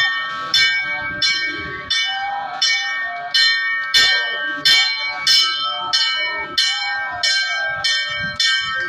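Brass temple bell rung steadily for the aarti, about one and a half strikes a second, each strike ringing on into the next. Voices can be heard underneath.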